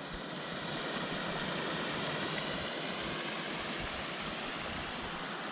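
Mountain stream rushing over rock, a steady, unbroken sound of running water.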